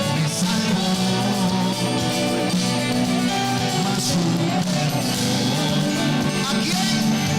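Live worship band music: singing over guitar and a steady bass line, with cymbals.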